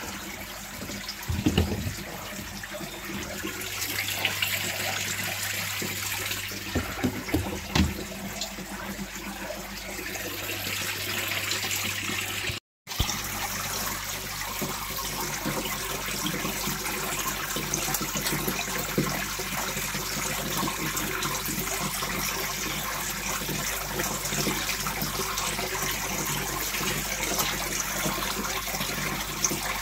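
Water running steadily into a koi pond, with koi splashing at the surface as they feed on floating pellets. There are a few knocks in the first several seconds, and the sound cuts out for an instant just under halfway.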